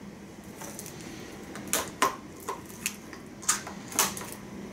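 Tin cans of condensed soup being handled and opened: a string of sharp clicks and taps, about six in all.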